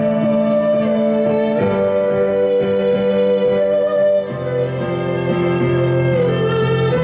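Morin khuur (Mongolian horsehead fiddle) bowed in long held notes, moving to a new note three times.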